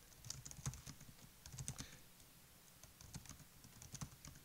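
Faint, irregular keystrokes on a computer keyboard as a terminal command is typed.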